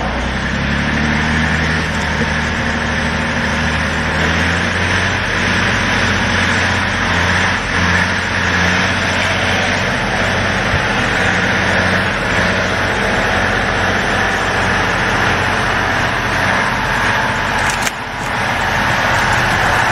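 Ural off-road truck's engine running hard under load as the truck pushes through deep mud, its pitch climbing over the first few seconds and then holding steady. A short break in the sound about 18 seconds in.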